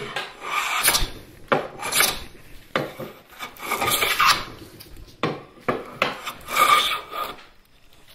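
Hand plane taking shavings off the edge of a 2x4 while flattening the twisted board. It is a series of forward cutting strokes about a second apart.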